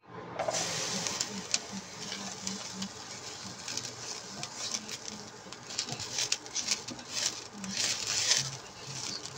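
Chopped garlic tipped from a plate into a pan and pushed around with a spatula: a run of light taps and scraping against the pan.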